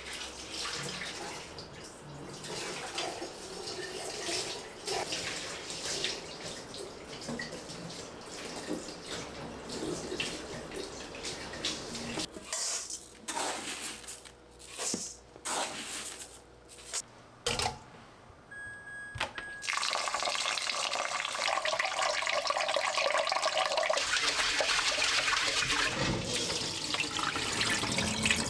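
Water from a kitchen tap running and splashing in a sink, uneven and broken by pauses at first, then a steady, louder full stream for the last several seconds.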